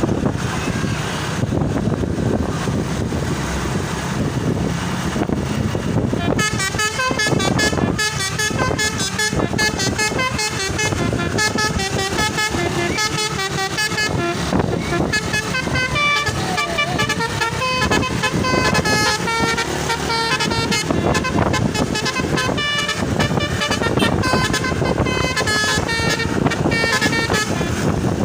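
Bus engine running, then from about six seconds in a Basuri multi-tone 'telolet' horn plays its full tune: a rapid melody of short horn notes that keeps changing pitch and runs on to the end.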